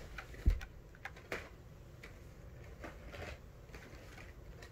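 Carded Hot Wheels die-cast cars being handled and set down: scattered clicks and rustles of the plastic-and-cardboard blister packs, with one louder thump about half a second in.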